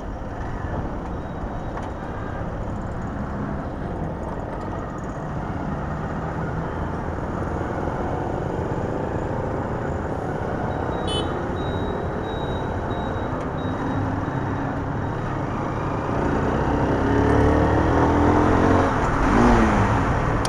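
KPR 150 motorcycle running on the road, its engine note under steady road and wind noise. Near the end it gets louder and the engine pitch shifts up and down.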